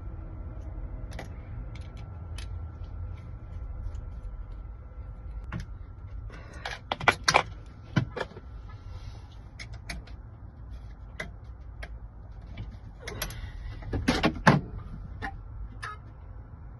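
Scattered sharp metal clicks and clatters of lock hardware and tools being handled, bunched in two clusters about seven and fourteen seconds in, over a steady low hum.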